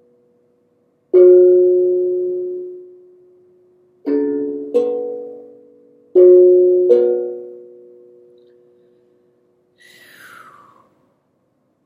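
Five ringing notes from a pitched instrument, struck or plucked, some in quick pairs, each fading slowly over a couple of seconds. Near the end comes a short, faint, falling swish.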